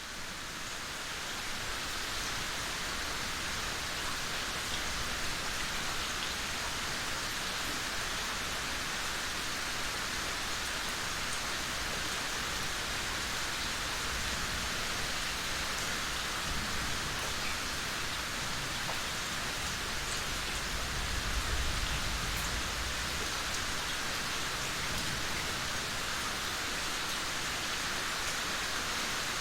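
Steady heavy rainfall: a dense, even hiss that rises in level over the first second or two, then holds. A low rumble swells briefly about two-thirds of the way through.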